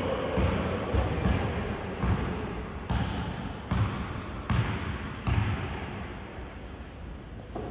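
A basketball being dribbled on a court, bouncing about once a second, then a pause and one more bounce near the end, over a steady background din.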